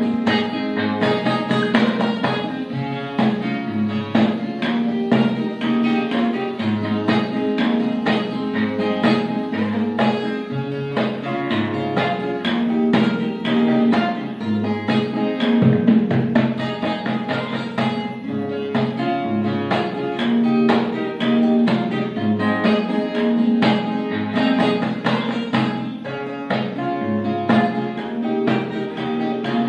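Background music with plucked guitar notes at a steady level.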